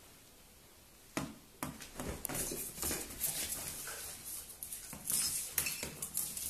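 Small dog scrambling about at play: a run of sharp clicks, knocks and scuffling as its claws skitter on a tiled floor, starting suddenly about a second in.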